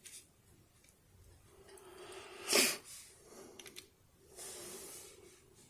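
A person breathing out hard through the nose twice, the first with a sharp sniff near its peak, close to the microphone. Between the breaths come a few light clicks of the small metal discs of a disassembled disc detainer lock being handled.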